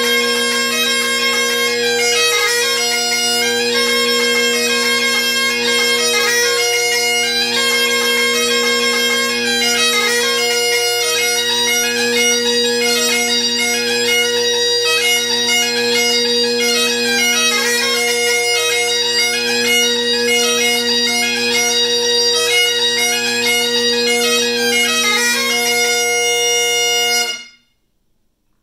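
Great Highland bagpipe playing a jig: steady drones under a quick chanter melody. The drones and chanter cut off together about a second before the end, and near silence follows.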